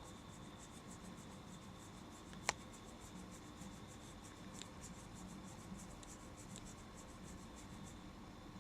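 Fingernails scratching a cat's back fur in quick, even strokes, about four to five a second, faint, stopping shortly before the end. A single sharp click about two and a half seconds in is the loudest sound.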